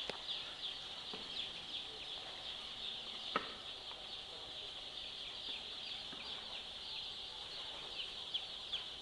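A large flock of layer hens in a shed, calling all together: a dense, steady chorus of many short high peeps. A sharp click or knock cuts through about three seconds in.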